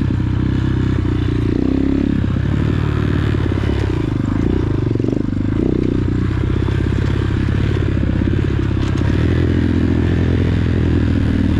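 Dirt bike engine running on a trail ride, its pitch rising and falling with the throttle through the first half and running steadier near the end.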